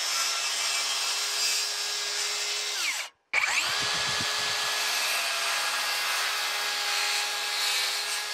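Cordless circular saw cutting through the top of a wooden 4x4 post: a steady motor whine under the rasp of the blade in the wood. It cuts off abruptly about three seconds in, then the saw spins up again and cuts on steadily.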